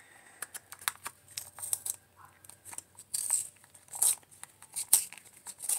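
A coloured pencil being twisted in a small handheld sharpener: irregular scratchy rasps and sharp clicks, the strongest rasps about three, four and five seconds in.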